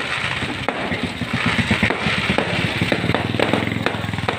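Fireworks popping and crackling in scattered sharp reports, over a fast low rattling pulse that grows stronger from about a second in.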